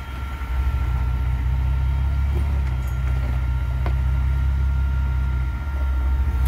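Willys flat-fender Jeep's engine running at low revs, a steady low drone as the Jeep crawls over a rock ledge, with one short click about four seconds in.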